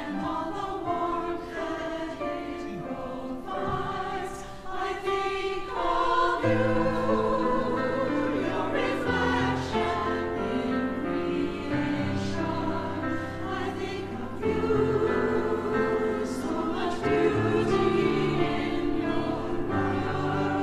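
Church choir of mixed men's and women's voices singing a choral anthem in parts. The sound grows fuller about six seconds in, as steady low notes join.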